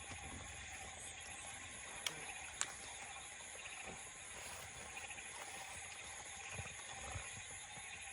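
Steady night-time insect chorus of crickets trilling, with two short sharp clicks about two seconds in.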